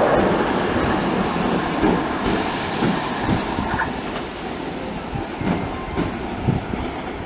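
Passenger train running through the station, its wheels clacking over rail joints in uneven thumps while the running noise slowly fades.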